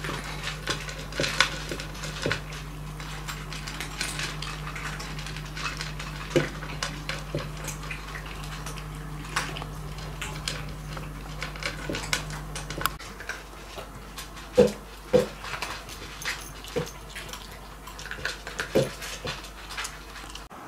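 Cats eating from ceramic food bowls: a tabby crunching dry kibble, with many small clicks of food and teeth against the bowl. About two-thirds of the way through, a long-haired calico takes over at a shallow white bowl, with a few louder knocks against the dish.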